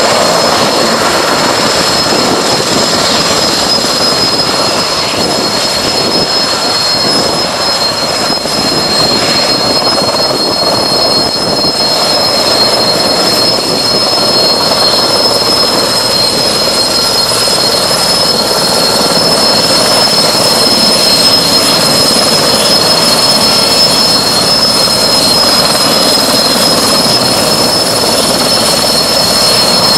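Erickson S-64 Air-Crane heavy-lift helicopter running on the ground, its turbine engines giving a steady high-pitched whine over the loud rush of the turning main rotor.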